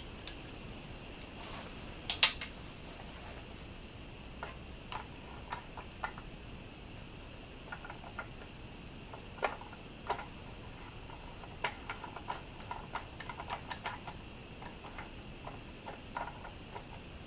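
Irregular light clicks and taps from hand work on an Atlas 7B shaper's crank and slider-block mechanism as it is tightened up and checked for movement, with one sharp click about two seconds in and a run of small ticks near the end.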